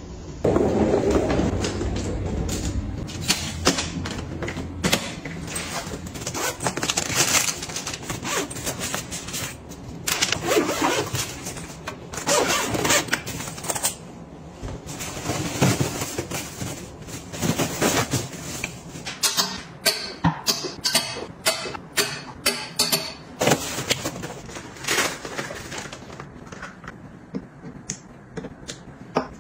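Close-up unpacking handling sounds: rustling and scraping of a suitcase and its packing cubes, with many short sharp clicks and a quick run of clicks in the second half. Near the end, small toiletry bottles are set down one by one on a bathroom counter with light taps. A low rumbling noise fills the first few seconds.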